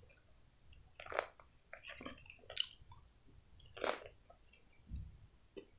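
Faint chewing and biting of breaded fried chicken: about six short, soft mouth sounds spaced roughly a second apart.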